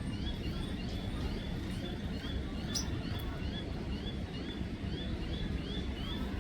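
A small bird repeating short, high, rising chirps, about two a second, over a steady low rumble.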